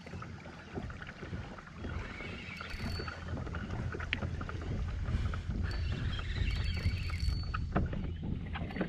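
Water sloshing against a fishing kayak's hull, with scattered light knocks and clicks.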